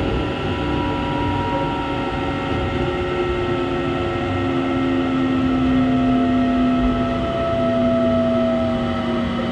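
Running sound inside a Keikyu New 1000 series car with a Toshiba IGBT-VVVF inverter: the inverter and traction motors whine in several tones that slowly fall in pitch as the train slows, over a steady rumble of wheels on rail.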